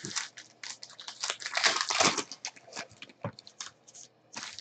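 Trading-card pack wrapper crinkling and cards rustling as they are handled: a run of rustles and light taps, densest between one and two seconds in, with a sharp tap a little after three seconds.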